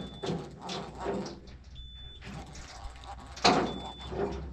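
Knocks and handling thumps on a fishing boat over a steady low engine hum. The loudest knock comes about three and a half seconds in, and a short high beep recurs about every two seconds.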